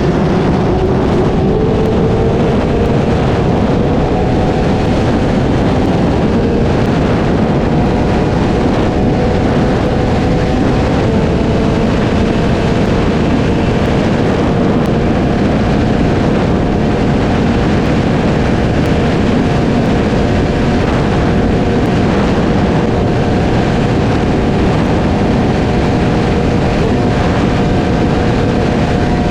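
Sport bike's inline-four engine running at high revs, rising in pitch at the start and then holding a steady note, with wind and road noise on the onboard microphone.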